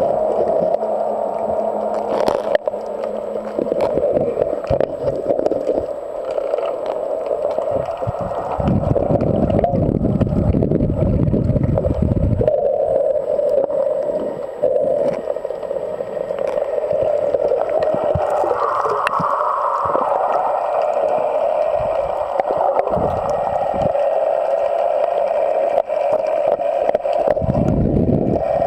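Muffled underwater sound heard through a submerged camera: water gurgling and sloshing over a steady mid-pitched drone. There are deep rumbling surges about nine seconds in and again near the end.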